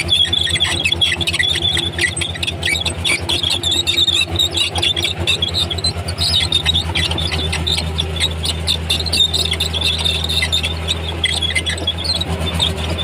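Komatsu D31P crawler bulldozer at work: its diesel engine running steadily under load, with many short, irregular high squeaks and squeals from the steel tracks and undercarriage.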